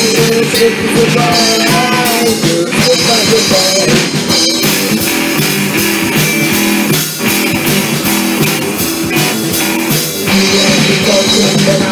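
Rock band playing live through a stage PA: electric guitars and a drum kit, with a lead vocal over the top.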